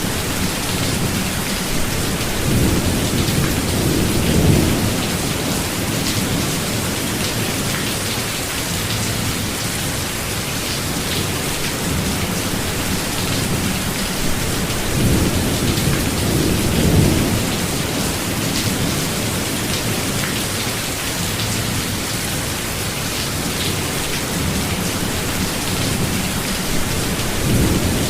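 Steady rain falling in a thunderstorm, a constant even hiss. Low thunder rumbles swell and fade three times: a few seconds in, midway, and again near the end.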